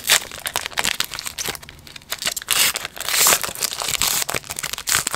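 Foil wrapper of a Panini Chronicles baseball card pack being torn open by hand and pulled apart, a dense run of crinkling crackles, loudest in the middle.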